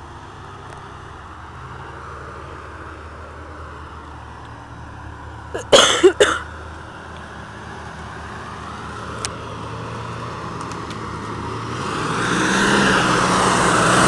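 Full-size Ford Bronco's engine running as the truck drives up a dirt trail toward the listener, getting steadily louder as it nears and much louder over the last couple of seconds. A brief loud noise close to the microphone cuts in about six seconds in.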